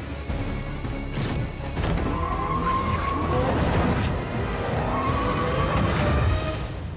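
Action-film sound mix: a music score over car engines revving and tyres squealing as vehicles drive off a cargo plane's rear ramp, with scattered sharp hits.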